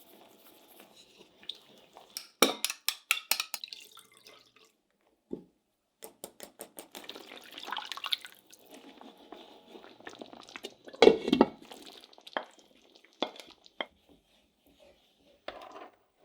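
Kitchen handling sounds: quick runs of light clicks and taps from utensils and dishes, with a louder knock about eleven seconds in.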